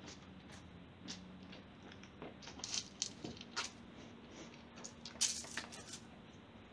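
Faint scattered scuffs and clicks of someone moving about, the loudest about five seconds in, over a faint steady low hum.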